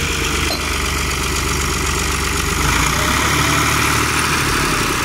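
New Holland Ghazi tractor's diesel engine running steadily at idle, its low note shifting a little about halfway through.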